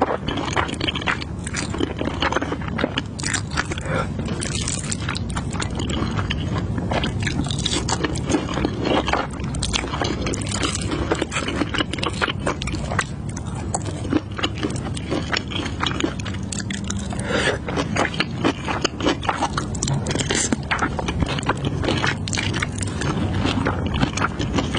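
Close-up eating sounds of saucy instant noodles: slurping and wet chewing with many small mouth clicks, and wooden chopsticks scraping through the noodles against a glass bowl.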